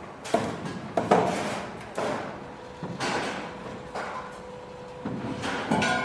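Construction site work sounds: irregular knocks and clanks, about one a second, each with a short ring. A faint steady hum joins about halfway through.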